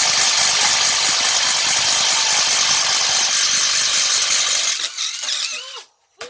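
DeWalt brushless cordless impact driver hammering hard as it drives a screw, a dense rapid clatter that stops abruptly about five seconds in.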